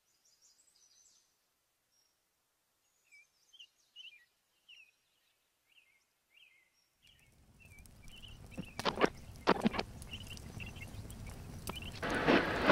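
Faint bird chirps over quiet outdoor ambience. About halfway through a low rumble comes in, with several sharp clicks and knocks, and it grows louder near the end.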